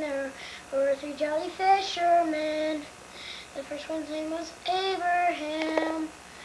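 A young boy singing a tune alone, holding each note before stepping to the next.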